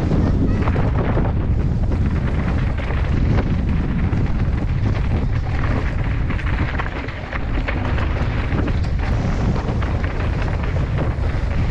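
Wind buffeting a helmet camera's microphone during a fast mountain-bike descent, a steady low rumble, with the bike's tyres and frame rattling and knocking over rough dirt and gravel.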